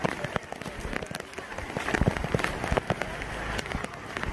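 Torrential rain pouring down, with many sharp drop hits close by over a steady hiss.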